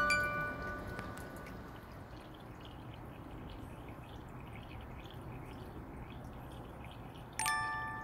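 Bright chime tones ring and fade over the first second, then a few seconds of soft steady hiss, then a new cluster of chime strikes near the end.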